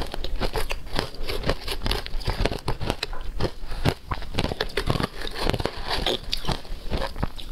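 Shaved ice crunching as it is chewed, a rapid, irregular run of crisp cracks close to the microphone.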